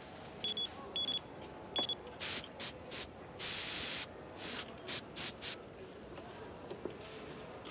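A few short, high electronic beeps, then a quick run of short hissing spurts, one of them held for about half a second.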